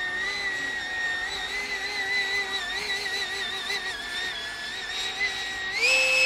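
Electric ducted fan of a model Eurofighter jet (Turbofan 4090 fan driven by a Neu 1527 motor) whining in flight with a high, steady tone that wavers slightly. Near the end the pitch rises quickly and holds higher as the fan spools up.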